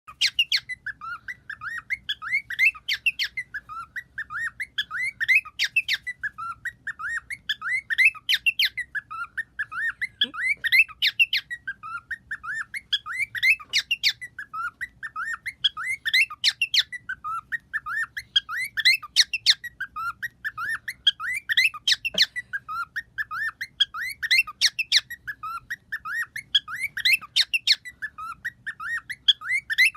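A pet bird making rapid clicking sounds. The clicks run in a repeating cycle that dips and rises in pitch, with a sharp, louder click about every three seconds.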